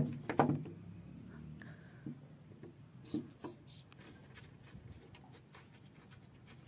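Metal screwdriver working the screws of a door latch on a wooden gate: a couple of sharp clicks at the start, a few more clicks about three seconds in, then faint scraping and light ticking.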